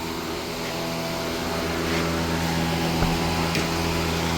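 1999 Saturn SL2's 1.9-litre DOHC four-cylinder engine idling steadily with its muffler and resonator cut out, the exhaust coming straight out after the catalytic converters. It gets a little louder about a second in.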